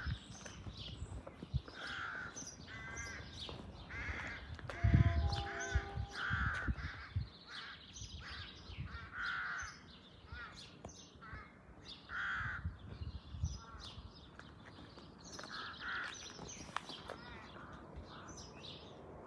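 Crows cawing repeatedly, a short harsh caw every second or two. A brief low rumble about five seconds in is the loudest sound.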